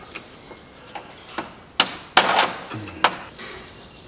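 Sharp metal knocks and clanks, three louder ones in the second half, one followed by a short rattle, as a stuck timing gear and chain on a Cadillac 368 V8 are worked loose.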